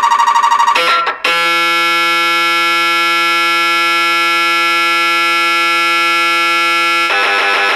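MRI scanner's gradient coils sounding through changing imaging sequences. A fast, rapid beeping stops about a second in; after a brief break comes a steady, loud buzz lasting about six seconds; near the end it switches to a different fast, pulsing rattle.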